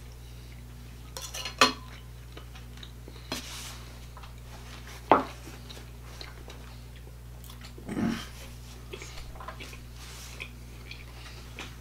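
Knife and fork on plates as steak is cut: scattered clinks and scrapes, the sharpest about five seconds in, over a steady low hum.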